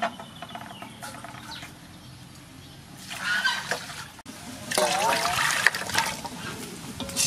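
Water poured from a ladle into a metal pot holding large sea snails, splashing and bubbling for a couple of seconds in the second half.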